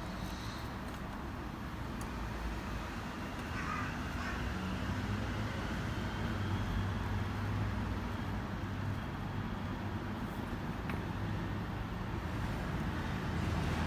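A car engine running steadily with a low hum, with a brief higher call about four seconds in.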